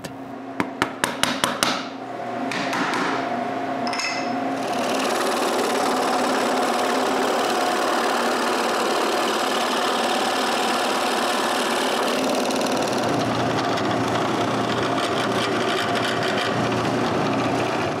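A quick series of sharp taps as a centre punch marks a pivot spot in a wooden block. About two seconds in, a scroll saw starts up and runs steadily, its blade cutting the small wooden piece.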